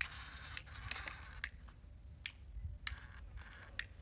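Irregular clicking and scraping from a homemade DC-motor model tractor straining against a mud-loaded trolley, with patches of hiss between the clicks. The clicking is the sign of its tyre catching on the trolley, so the model struggles and cannot climb.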